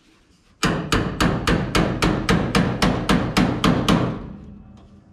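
Ball-peen hammer striking the sheet-steel rocker flange of a 1957–58 Plymouth, bending the metal back down: about a dozen quick, even blows, about four a second, beginning about half a second in and stopping near the end.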